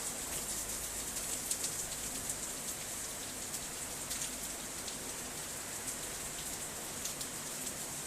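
Heavy rain mixed with sleet falling steadily, a dense hiss with many sharp ticks of drops and ice pellets striking surfaces.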